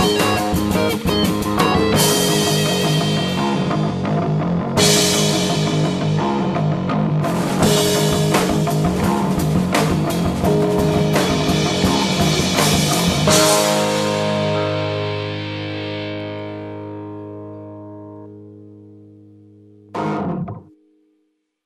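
The closing bars of an instrumental rock track, with guitar and drum kit playing together. About thirteen seconds in, the band strikes a final chord and lets it ring and fade away. One short last hit comes near the end, and then the sound cuts off.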